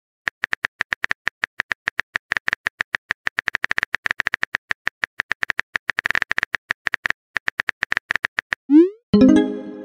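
Simulated phone-keyboard typing clicks, a quick uneven run of short ticks, one per keystroke as a text message is typed. Near the end come a short rising swoosh and a bright chime as the message is sent.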